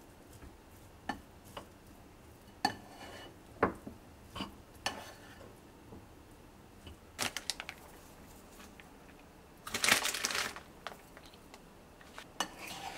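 Plastic rice paddle scraping and tapping against a ceramic bowl while mixing rice with chopped greens: a scatter of short clicks and scrapes, with a louder rustle lasting about a second around ten seconds in.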